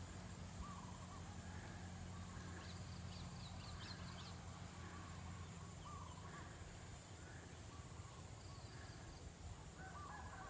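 Faint outdoor ambience: scattered short distant bird calls over a steady high, fast-pulsing insect trill.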